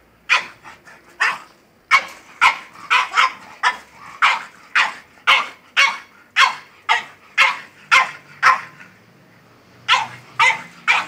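French bulldog barking repeatedly, about two sharp barks a second, with a pause of about a second near the end before it starts barking again.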